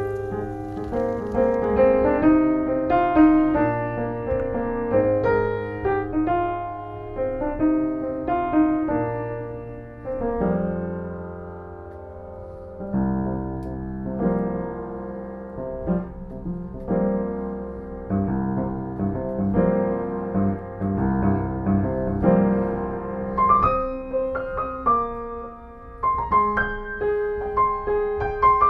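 Background piano music: notes and chords played over one another, with a softer, lower passage about ten seconds in.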